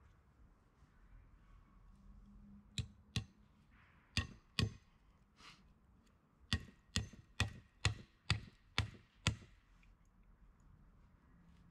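Sharp blows of a hand tool striking wood: two pairs of strikes, then a run of seven about two a second.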